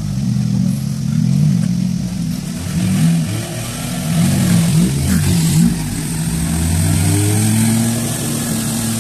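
Maruti 800's small three-cylinder petrol engine revving up and down again and again as it pulls through water, with water splashing around the car.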